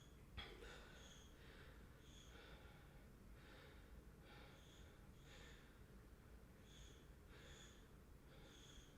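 Near silence: room tone, with faint soft sounds repeating about every half second.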